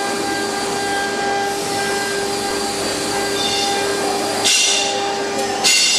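CNC router spindle running with an engraving bit cutting into MDF: a steady whine over cutting noise, with two short surges of louder hiss about four and a half seconds in and near the end.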